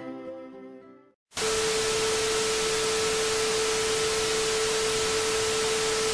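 String music fading out, then after a moment of silence a sudden, loud burst of television static: a steady hiss with a single steady test tone running through it, as of a TV that has lost its signal.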